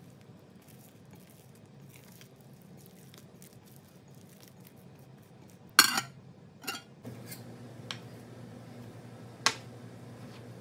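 A silicone spatula stirring and folding sticky bread dough in a glass bowl, with faint soft scrapes, then one sharp clink of a plate set over the glass bowl just before six seconds in. Near the end a metal bench scraper knocks on the countertop as it cuts through the dough, over a low steady hum.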